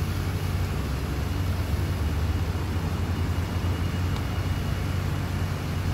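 Steady low outdoor rumble, like vehicle or machinery noise, with a faint thin high tone through the middle and a tiny click about four seconds in.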